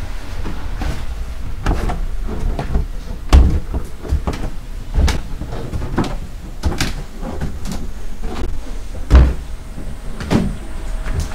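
A series of irregular thumps and knocks, roughly one a second, two of them much louder than the rest, over a constant deep rumble.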